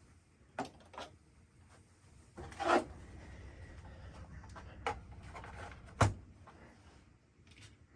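Handling of small metal parts while the buffer is taken out of an AR-15 lower's buffer tube: a few light clicks, a scraping rattle nearly three seconds in, and a sharp knock about six seconds in, the loudest sound.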